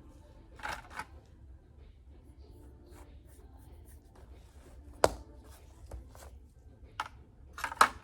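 Several sharp clicks and light taps with brief rustles, as of small objects being handled and set down on a table, over a faint steady hum. The loudest click comes about five seconds in, and a short rustling flurry comes near the end.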